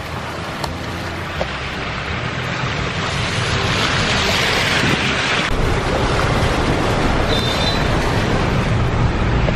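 Car driving through a flooded street, heard from inside the cabin: a steady wash of water around the tyres over the car's low rumble. The hiss of the water is loudest around the middle, then cuts off and gives way to a deeper road rumble.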